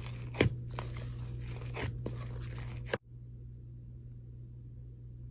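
Hands squishing and poking a fluffy, inflated slime, giving crackly, crunchy squishes that stop abruptly about three seconds in. After that there is only a faint steady hum.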